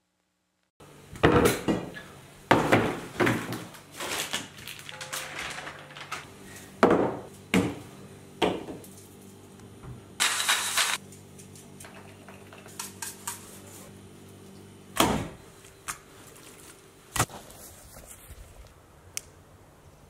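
Kitchen food-preparation clatter: a string of sharp clinks and knocks from a stainless steel bowl, utensils and a wooden chopping board, with a brief rushing noise about ten seconds in, over a faint steady hum.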